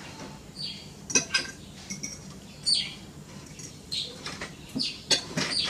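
Forks clinking and scraping on plates during a meal, in scattered light clicks.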